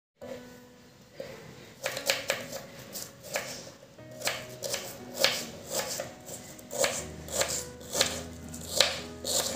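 Knife slicing red onions on a wooden chopping board: a run of crisp cuts, each ending in a tap on the board, about two to three a second from about a second in. Soft background music plays underneath.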